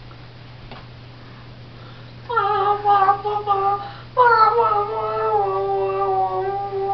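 A high-pitched voice, put on for the puppet, makes two long held notes starting about two seconds in; the second lasts about three seconds and settles slightly lower. Under it runs a steady low hum.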